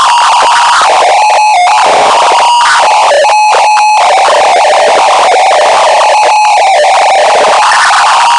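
Earrape sound effect: a simple synthesizer-like melody of held notes, boosted far past full scale so it clips into harsh, loud, noisy distortion. The loudness stays pinned at the top.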